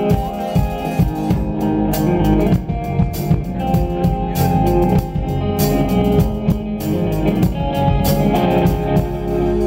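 Live rock band playing an instrumental passage: hollow-body electric guitar, bass guitar and drum kit with cymbal hits. Near the end the drums drop out and a held chord rings on.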